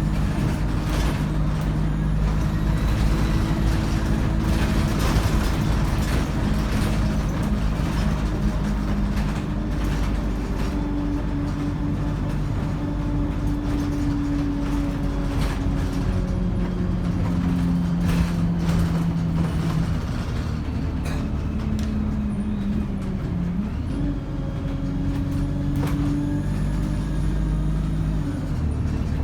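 ADL Enviro 200 single-deck bus under way, its diesel engine and three-speed Voith automatic gearbox running. The engine note holds, then steps up and down in pitch several times, with a faint turbo whine and occasional rattles and clicks, mostly in the first half.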